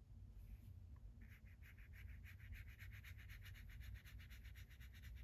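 Faint, quick scratching of a watercolor brush scrubbing paint and stroking it onto paper, starting about a second in, at about seven strokes a second.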